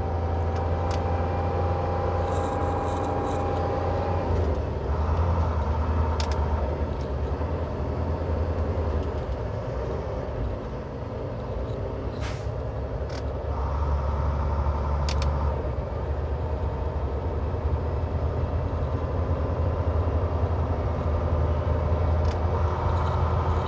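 Semi truck's engine running steadily, heard inside the cab: a low rumble that swells twice and eases in between, with a few short sharp clicks or hisses.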